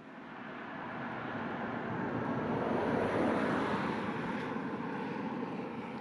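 A vehicle passing on the road: a rushing noise that swells to a peak about halfway through, then slowly fades away.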